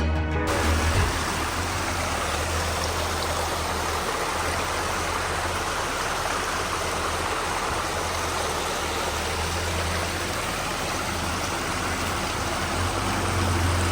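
Jeep Gladiator engine running with a low, steady hum under a steady rushing noise, which grows slightly louder near the end.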